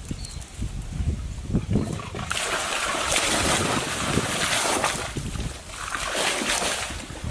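Water splashing and sloshing in two long stretches, after a few low knocks at the start.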